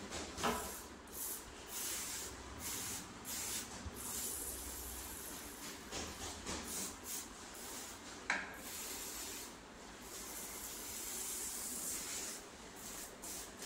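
Pressurised liquid spray hissing on and off from anti-termite treatment pipework, with a couple of brief sharp clicks.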